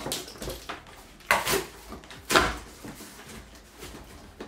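Cardboard shipping box being opened by hand: its flaps pulled back and folded open in several short rustles, the loudest about two and a half seconds in.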